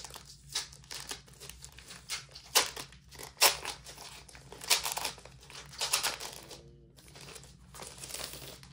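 Clear plastic sleeve crinkling in a run of sharp crackles as its taped flap is peeled open and it is pulled off a paper booklet.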